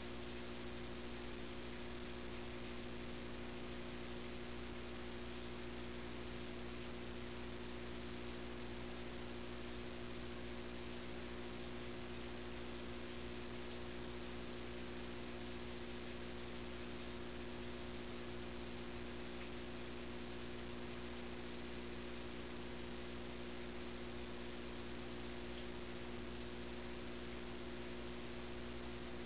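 Steady hum of a few fixed tones over an even hiss, with no change and no distinct events.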